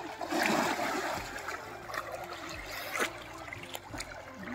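Someone plunging into a shallow river: a splash of water about half a second in, then running river water with small splashes as he swims.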